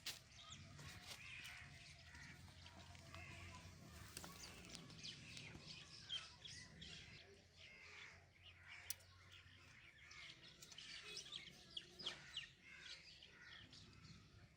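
Faint outdoor birdsong: many small birds chirping in quick short calls, with a few sharp clicks in between.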